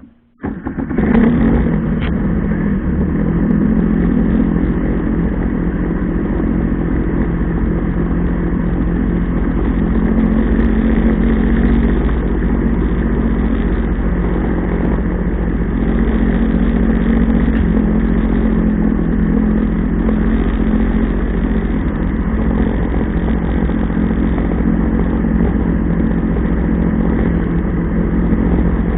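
Jet ski engine running steadily under way, cutting in suddenly about half a second in.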